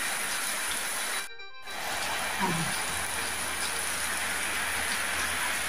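Heavy rain falling in a steady hiss, with a brief dropout in the sound about a second in.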